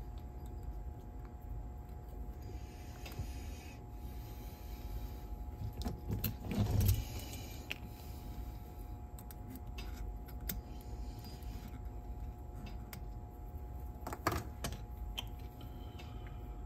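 Small clicks, taps and scrapes of hands working on a cassette deck's transport mechanism while a drive belt is fitted, over a faint steady hum. A louder scraping rustle comes about seven seconds in and a sharp knock about fourteen seconds in.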